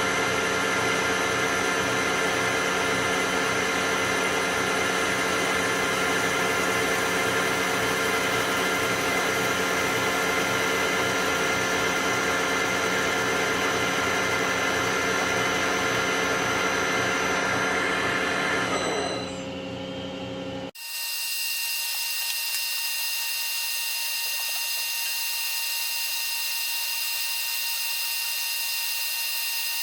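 A machine motor running steadily with a set of fixed whining tones. About 19 s in it fades, and about 21 s in it cuts abruptly to a different steady high whine with no low end.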